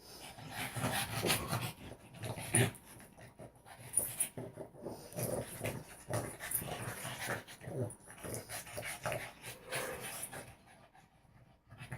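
Two dogs play-fighting on a couch: a quick, irregular run of short dog noises and scuffles that eases off near the end.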